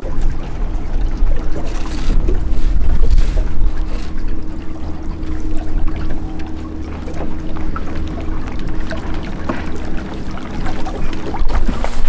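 Small fishing boat under way: a steady motor hum over low wind rumble on the microphone and water against the hull, the motor hum stopping shortly before the end.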